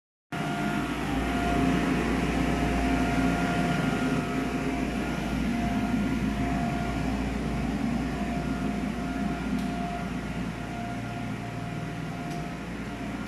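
Steady hum of ventilation fans with a faint whine held at one pitch, starting abruptly after a short dropout right at the start.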